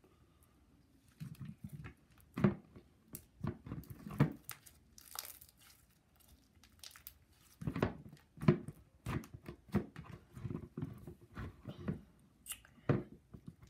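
Nickelodeon Crazy Art "Whoa Watermelon" slime being poked and squished by hand, giving irregular soft wet clicks and squelches. There are quiet gaps between them, and they come most often in the second half.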